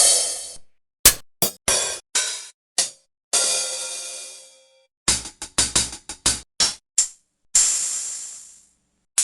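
A series of separate cymbal strikes with silence between them: mostly short, choked hits, including a quick run of about eight in the middle, and two longer crashes that ring out and fade over about a second.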